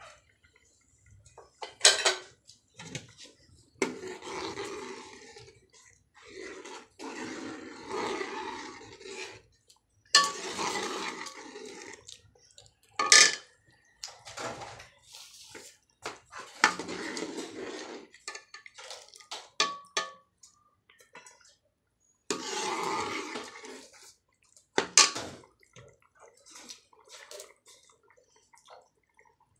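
A steel ladle stirring curry in a metal pot, with several sharp clinks against the pot and stretches of scraping.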